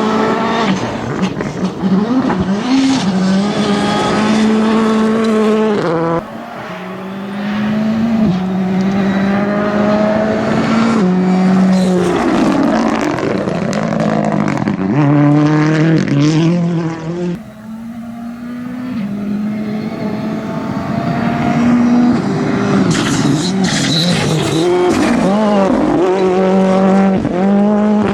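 Rally car engines revving hard, the pitch stepping and sweeping up and down, with sudden drops in level about six and seventeen seconds in.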